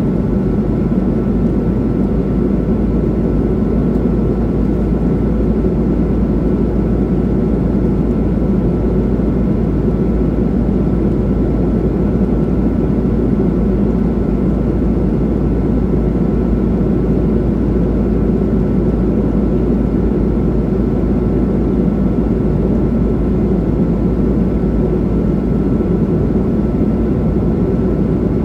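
Steady cabin drone of a Boeing 737 airliner in flight: an even rush of engine and airflow noise with a faint steady high tone over it, unchanging throughout.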